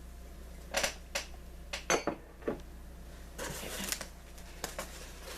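Ceramic mugs being handled, knocking and clinking against each other and the table in a series of sharp taps, one with a short ringing clink about two seconds in, with a brief rustle of packaging a little past the middle.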